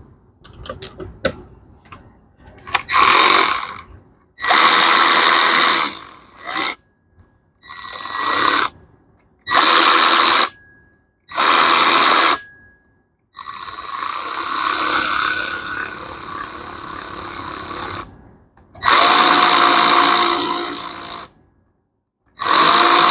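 Power driver running in short bursts, about seven times, with one longer, quieter run in the middle, spinning the new flywheel bolts down snug before they are torqued.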